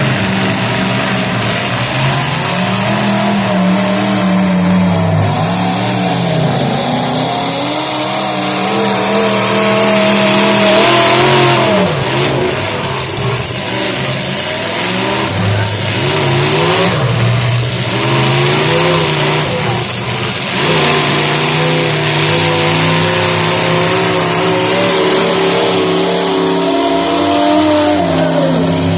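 Several demolition derby cars' engines running and revving at once, their pitches rising and falling as the cars accelerate and back off.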